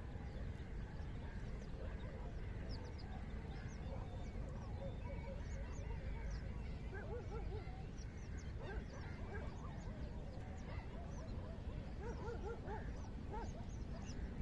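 A flock of geese honking, the calls coming thickest in the second half, with small birds chirping high above them and a steady low rumble underneath.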